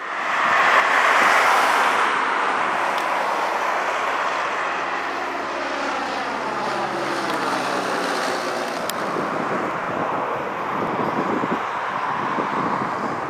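Reims-Cessna F172P Skyhawk's four-cylinder Lycoming engine and propeller passing low overhead on landing approach. It is loudest as it comes over, then its note slides down in pitch as it passes and moves away.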